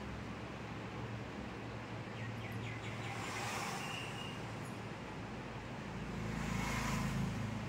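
Steady low rumble of background noise, like road traffic, growing a little louder near the end.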